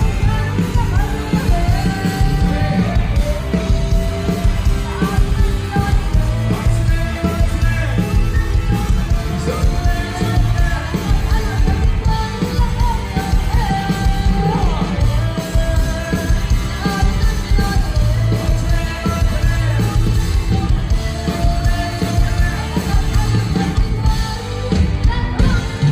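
Loud amplified live Thai ramwong band music, with a heavy pounding drum and bass beat under a sliding melody line.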